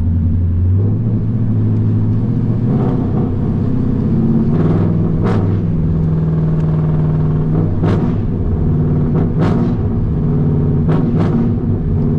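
A car engine running, its low hum stepping in pitch now and then as the revs change, with a few short sharp knocks or clicks over it.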